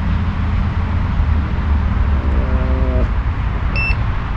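A digital multimeter gives one short, high beep near the end as its measuring range is changed, over a steady low rumble.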